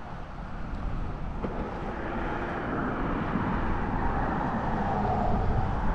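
Road traffic on the bridge: a passing vehicle's noise swells steadily over several seconds.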